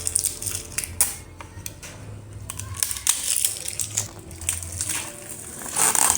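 Irregular clicks and knocks with some rustling, the sound of objects being handled and set down, over a low steady hum.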